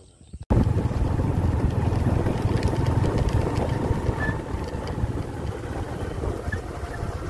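Steady wind rushing and buffeting the microphone, mixed with a running engine, as heard when filming from a moving vehicle. It starts abruptly about half a second in.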